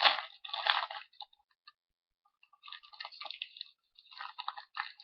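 Foil trading-card booster pack wrapper crinkling and tearing: two rustling bursts at the start, a pause, then a run of irregular crackling.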